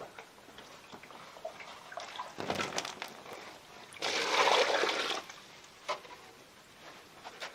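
Water splashing, with small clicks and a louder rush lasting about a second, about four seconds in.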